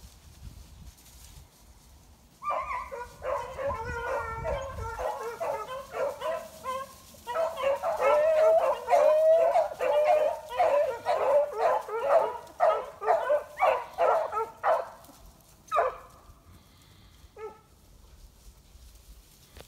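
A pack of beagles baying together in a rapid chorus of short, overlapping barks. It starts about two and a half seconds in, is loudest in the middle and breaks off about five seconds before the end, leaving a couple of single cries.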